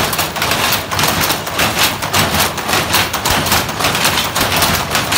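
Shuttle loom weaving cotton saree cloth: a loud, steady mechanical clatter with sharp strikes of the shuttle and beater coming a few times a second.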